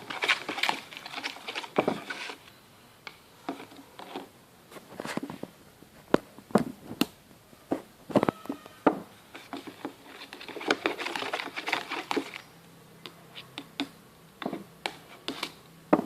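A spoon stirring liquid glue and purple colouring in a container, with irregular clicks, taps and scrapes against the container's sides. The stirring is busiest at the start and again from about ten to twelve seconds in.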